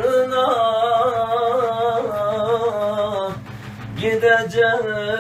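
Male voice singing a Sufi ilahi, one word drawn out in a long ornamented line. Def frame drums are played beneath it. About three and a half seconds in the voice breaks off briefly, then comes back.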